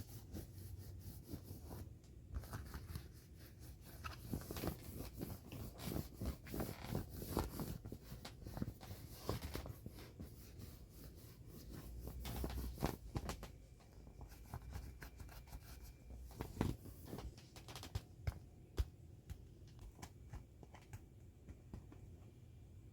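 Hands rubbing, squeezing and pressing on an inflatable vinyl puppy toy: irregular scratchy rubbing and squeaky clicks of soft vinyl, busiest in the first half and thinning out to a few scattered clicks toward the end.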